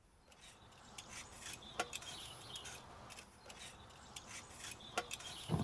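A raw potato being peeled by hand: soft, irregular scraping strokes of the blade on the skin, with small clicks and taps as potatoes are handled on the board.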